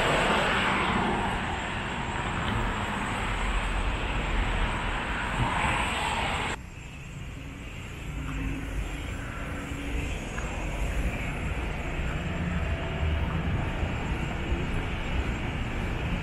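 City street noise: a steady rumble of traffic. About six and a half seconds in it drops abruptly to a quieter, duller rumble and carries on.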